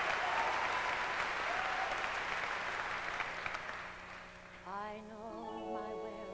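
Audience applauding in a concert hall, fading away over about four seconds. Then the orchestra's introduction to the song comes in with sustained, slightly wavering chords.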